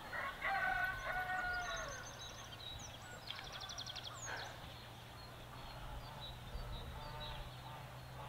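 Farmyard fowl calling, loudest in a series of calls during the first two seconds, with fainter calls again near the end. A quick run of higher chirps comes about three seconds in.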